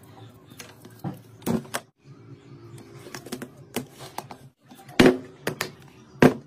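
Irregular knocks and taps of parts and tools being handled on a workbench, with a steady low hum underneath; the loudest knocks come about five seconds in and just before the end.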